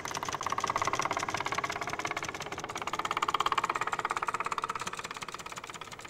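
Piston engine of a Wright Flyer-style biplane running in flight, a fast even pulsing that swells to its loudest about three seconds in and then eases off.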